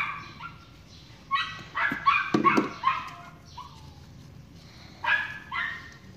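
A small dog barking in short, high-pitched yaps: a quick run of barks between about one and three seconds in, then two more near the end.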